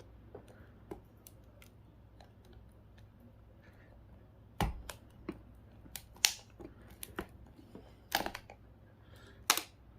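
Flathead screwdriver jabbing and prying at a GPS unit's plastic casing, making scattered sharp clicks and knocks that get louder and come more often from about halfway through as it breaks a hole in the plastic.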